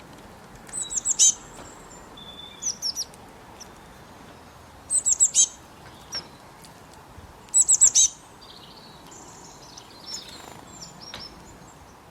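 A small bird chirping in quick clusters of three to five high, falling notes, four times over, with a few softer calls near the end, over a steady background hiss.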